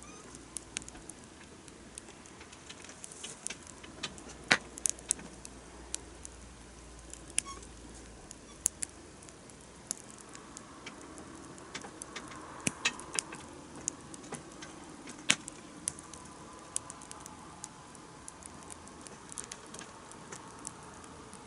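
Wood campfire crackling, with sharp irregular pops and snaps over a low steady hiss.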